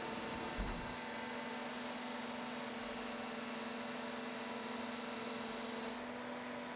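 Steady electrical hum of a large sheet-metal press running as its die closes slowly on a steel grille panel to turn over the top edge. A higher part of the hum drops out near the end.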